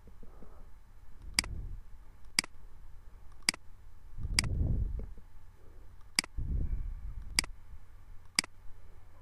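Computer mouse clicking, seven sharp single clicks spaced roughly a second apart, with a few soft low rumbles between them.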